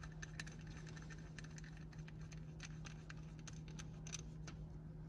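Faint, scattered light clicks and scratches of a small metal tool against an aluminium VVT solenoid housing as it is handled, over a steady low hum.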